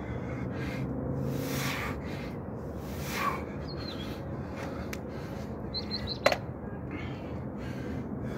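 A man breathing hard through a set of push-ups, with loud exhales about every second and a half, over a steady low hum. A sharp click comes about six seconds in, and there are a couple of faint bird chirps.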